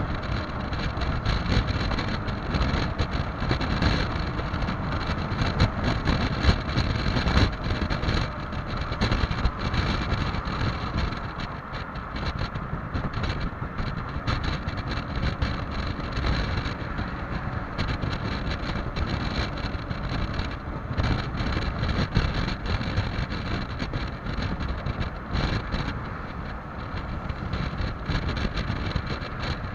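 Loud wind noise buffeting the microphone on a Yamaha XMAX 300 scooter riding at speed, rising and falling in gusts, with the engine's steady drone faint beneath it.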